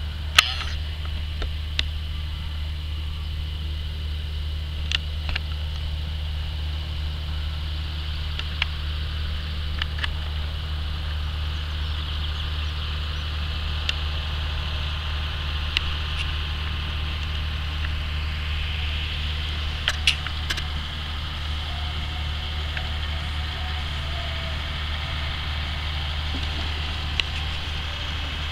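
John Deere tractor's diesel engine running steadily under working load, a constant low drone with a high whine over it, and a scattering of sharp clicks.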